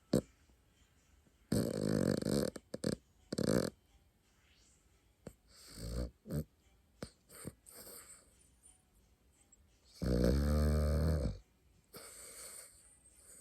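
Pet dog snoring in its sleep: several separate rough snores, the longest and loudest a buzzing snore about ten seconds in. A brief sharp click right at the start.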